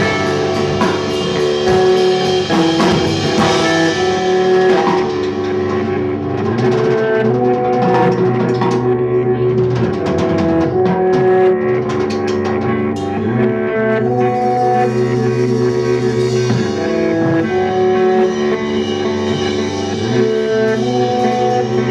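Live instrumental rock trio playing: electric guitar, bass guitar and drum kit, with sustained guitar notes over a steady bass line and cymbal and drum hits.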